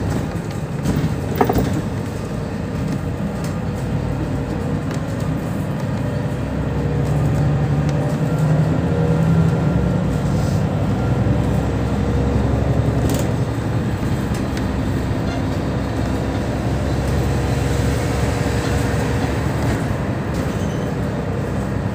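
Cabin noise of a 2008 Mercedes-Benz Citaro O 530 city bus under way: the diesel engine runs steadily with road noise, and its drone grows louder from about six seconds in as the bus picks up speed. A brief sharp knock sounds about a second and a half in.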